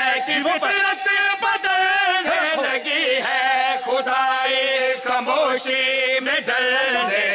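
A group of men chanting a devotional qasida refrain together into a microphone in long held notes with wavering pitch.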